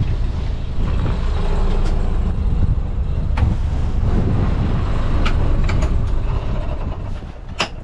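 Wind buffeting the microphone as a steady low rumble, with a few sharp knocks and clicks as a cockpit seat locker lid is lifted open, the loudest near the end.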